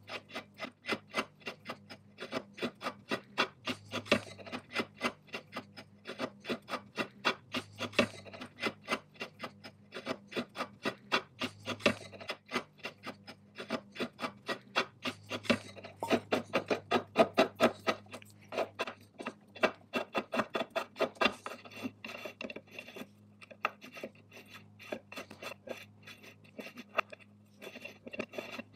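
Quick, regular rasping strokes of a hand tool against a knurled metal wheel clamped in a vise, several strokes a second, with a couple of short breaks near the end while the wheel is turned.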